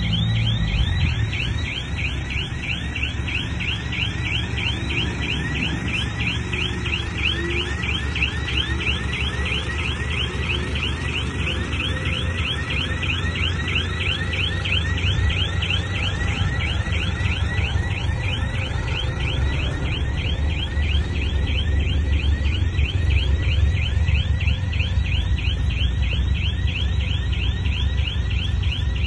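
Bulldozer engine running with a low rumble, over a rapid, regular high-pitched squeak of short falling chirps, about four a second, that keeps up without a break.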